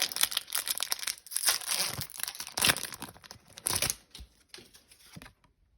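Foil wrapper of a Pokémon TCG booster pack crinkling and tearing as it is opened. The dense crackling lasts about four seconds, then thins out into a few scattered rustles.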